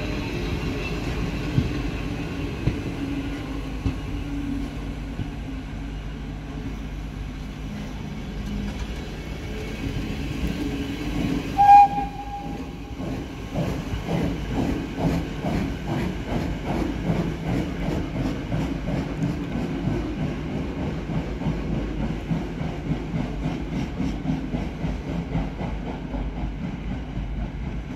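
Pt47 steam locomotive hauling its train away: the carriages rumble and clatter over the rails, the locomotive's whistle gives one short blast about twelve seconds in, and then steady, rhythmic exhaust beats follow as it works away.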